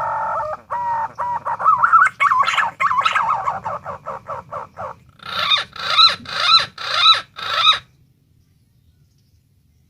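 Green pigeon (punai daun) calling: whistled notes that glide in pitch, breaking into a fast run of short notes, then five evenly spaced wavering calls about half a second apart. The calls stop about eight seconds in.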